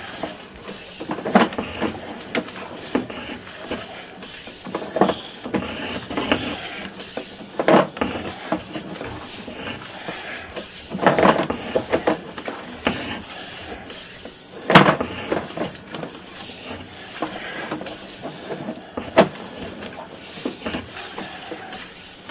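A series of irregular knocks and clatters, about half a dozen spread out, over a faint steady background noise.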